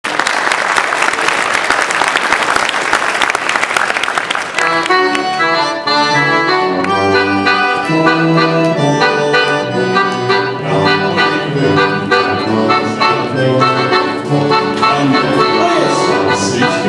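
Audience applause for about four and a half seconds, then a live folk band strikes up an Alpine dance tune for Schuhplattler dancing, the accordion carrying the melody.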